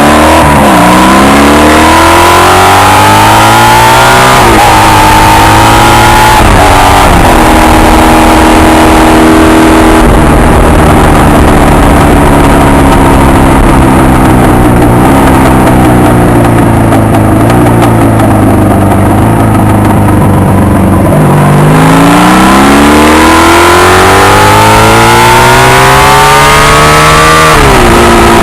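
Honda VF750 motorcycle's V4 engine under hard acceleration. It revs up through two quick gears near the start, then holds a long, slowly falling note while cruising. Near the end it climbs again in one long pull and drops sharply at a gear change.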